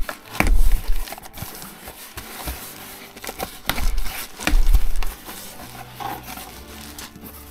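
Hands opening a cardboard box and handling the bubble-wrapped plastic bags inside: rustling and crinkling, with sharp clicks and a few dull bumps against the box, about half a second in and again around four to five seconds in.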